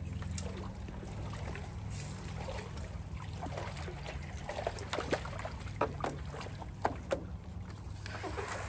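Paddling a small boat on calm water: paddle strokes with dripping water and a few sharp knocks, busiest in the middle, over a steady low hum.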